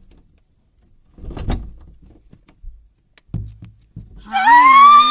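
A few dull thumps like a door being handled, then a loud, high-pitched child's scream held for nearly two seconds near the end.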